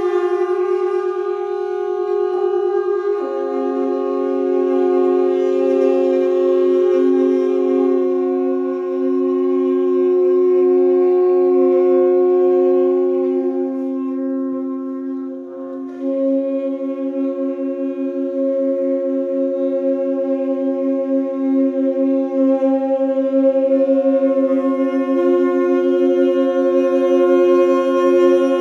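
Tenor saxophone quartet holding long, overlapping sustained notes as a slow drone. The chord shifts about three seconds in and again about sixteen seconds in, after a brief dip.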